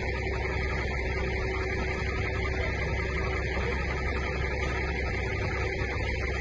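Tracked armoured vehicle's engine idling steadily.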